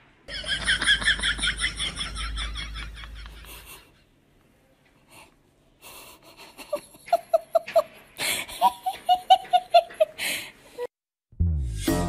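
People laughing in quick ha-ha pulses: a high-pitched giggle for the first few seconds, then, after a pause, two bouts of lower, rhythmic laughter in the second half.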